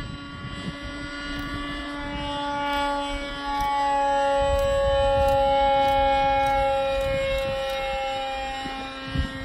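Model aircraft motor and propeller of a radio-controlled Curtiss Pusher scale biplane in flight, a steady whining drone. It grows louder about three and a half seconds in as the plane comes closer, its pitch sagging a little, and eases off again near the end.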